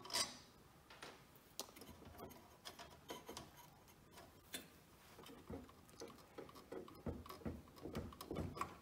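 Faint, scattered clicks and light taps of a screwdriver and hands handling the metal chassis and high-voltage cage of an old tube television, a little busier near the end.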